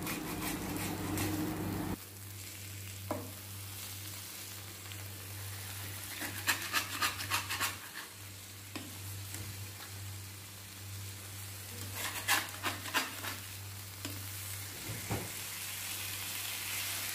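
Marinated chicken breasts sizzling steadily on an iron tawa while a spatula scrapes and clicks against the pan, in two short spells, as the pieces are flipped over.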